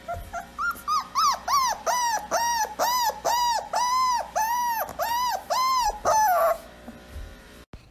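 A dog whimpering: a long run of short high whines, each rising and falling in pitch, two to three a second, stopping about six and a half seconds in.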